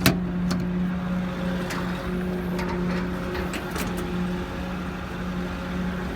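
Diesel truck engine idling with a steady hum, and a sharp click at the start with a few fainter clicks and knocks from the utility-body compartment doors and latches being handled.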